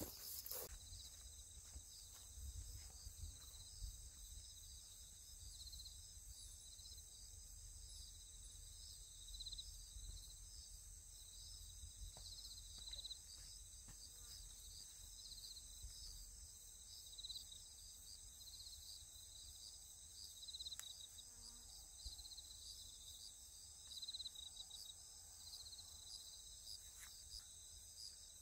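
Faint, steady chorus of crickets and other insects chirring in the grass, a high pulsing trill that never stops, with a faint low rumble underneath.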